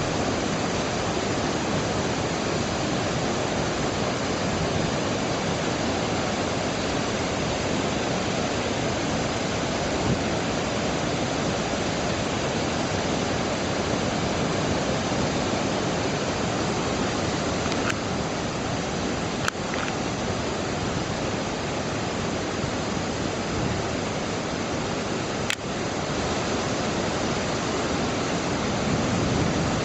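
Kanba Falls waterfall pouring, a steady, even rush of falling water. Three brief sharp clicks break through in the second half.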